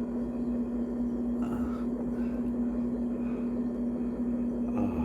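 Steady machine hum: one constant low tone over an even background rush, with no change in level.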